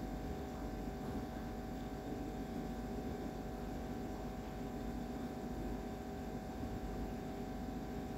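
Idlis deep-frying in hot oil in a pan: a steady sizzle and bubbling, with a low steady hum underneath.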